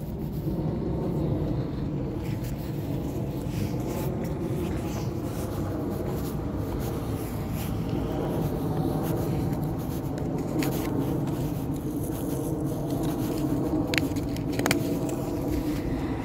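A motor vehicle running steadily, a constant low rumble, with a few sharp clicks near the end.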